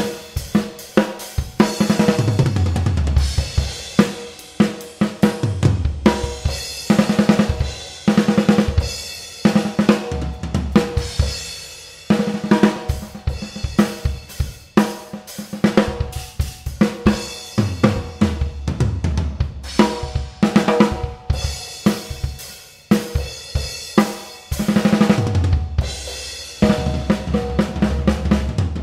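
Acoustic drum kit played hard and busy: snare, bass drum and hi-hat grooves broken by fills that run down the toms from high to low, with crash cymbals ringing over them.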